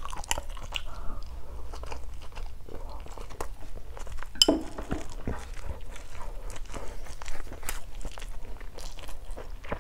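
A person chewing a mouthful of rice close to the microphone: soft wet mouth clicks and small crunches, with a sharper click about four and a half seconds in.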